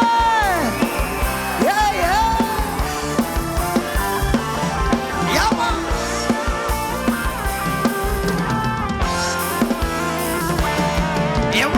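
Live Thai ramwong dance band playing an upbeat instrumental passage over a drum kit beat. A long held note at the start slides down and ends about a second in.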